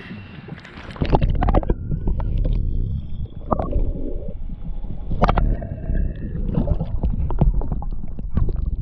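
A splash about a second in as the camera goes under the lake surface, then a muffled underwater rumble and gurgling of moving water, broken by repeated knocks.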